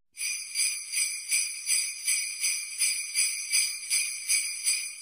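Jingle bells shaken in a steady, even rhythm, a little under three shakes a second, bright and high with no low end.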